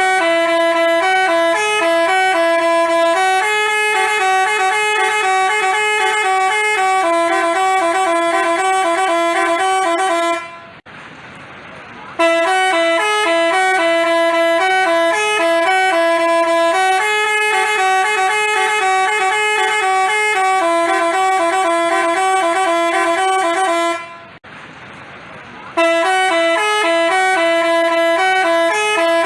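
Basuri multi-tone telolet bus horn playing a melody of held notes that step between a few pitches. It plays in three long runs, each broken off by a short pause of about a second and a half.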